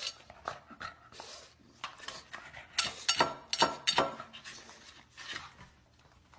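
Irregular clinking and clattering of hard objects, with a cluster of louder knocks about three to four seconds in.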